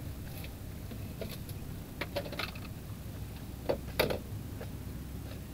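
A few scattered light clicks and knocks, irregular, over a low steady rumble.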